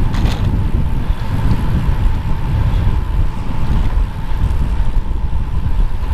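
Wind buffeting a helmet-mounted GoPro's microphone while riding a bicycle, a steady loud rumble with a thin steady hum running under it and a short click just after the start.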